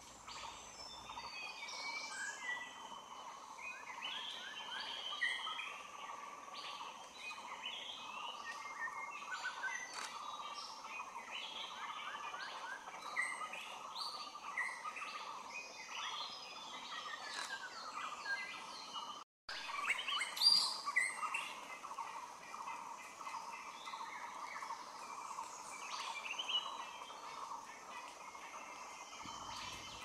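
Many small birds chirping and trilling in a forest chorus over a steady background drone. The sound cuts out for a split second about two-thirds of the way through, and a few louder chirps follow just after.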